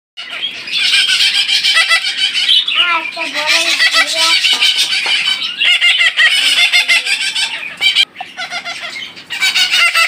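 Ring-necked parakeet chicks giving a dense run of rapid, high, chattering begging calls, the food-begging of young hand-fed nestlings. The calls break off briefly about eight seconds in.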